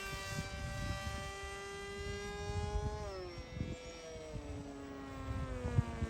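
Volantex Ranger 1600 RC plane's electric motor and propeller whining at a steady pitch; about three seconds in the pitch drops and settles lower. Wind gusts rumble on the microphone throughout.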